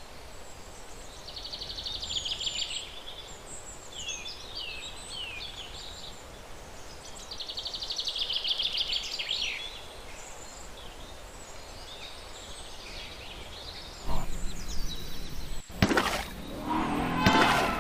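Wild birds singing, with repeated short down-sliding chirps and two longer rapid buzzy trills, over a steady outdoor background. About fourteen seconds in the sound cuts abruptly to a louder, rougher stretch with a couple of sharp cracks.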